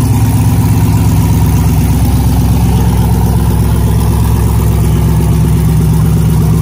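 LS V8 engine of a Pro-2 desert race truck idling steadily with a loud exhaust.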